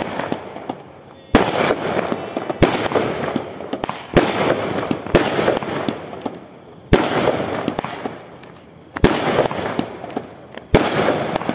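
Aerial fireworks bursting overhead: seven sharp bangs at uneven intervals of one to two seconds, each trailing off over a second or so.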